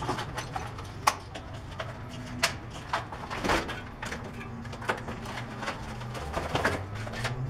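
Cardboard and plastic shipping packaging being pulled off a new bicycle: rustling and scraping broken by irregular sharp clicks and knocks.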